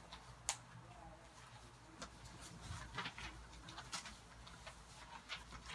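Faint scattered clicks and rustles of paper answer signs being handled.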